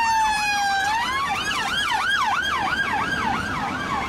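British police car siren: a slow falling wail that switches, about a second in, to a fast yelp rising and falling about three times a second.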